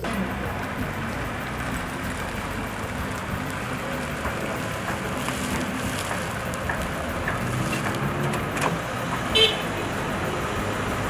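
A Toyota Venza crossover's engine and tyres on tarmac as it drives up and pulls to a stop, with one short horn toot about nine seconds in.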